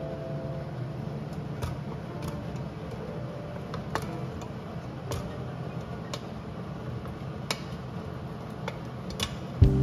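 Cooked celeriac chunks tipped from a stainless steel pan into a glass blender jar: scattered light clicks and knocks as pieces and the metal pan lid touch the glass. Right at the end a louder steady hum starts suddenly.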